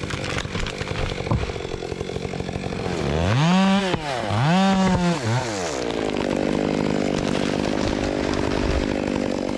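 Chainsaw engine running, revved up to full speed and back down twice a few seconds in, then running steadily.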